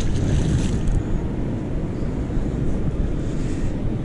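Wind buffeting the microphone, a steady low rumble, with the splash of a heavy 2,600 lb double-sided fishing magnet hitting the water in the first second.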